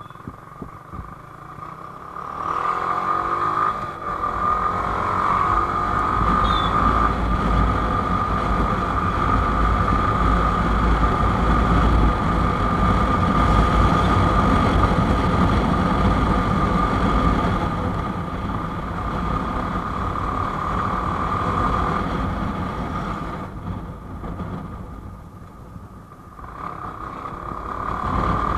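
Yamaha R15 V4's single-cylinder engine running under way as the motorcycle pulls away and picks up speed. It gets louder over the first few seconds and holds steady at speed, then quietens as the bike slows about three-quarters through and builds again near the end.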